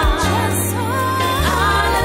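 A song: a singer's voice holding wavering notes over steady bass notes, with a brief cymbal-like hiss about half a second in.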